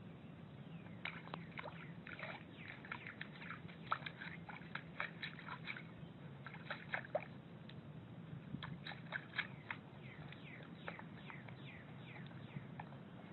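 Faint splashing and lapping of water as a puppy paws and drinks at a stone birdbath, with many short, sharp ticks and quick chirps scattered throughout.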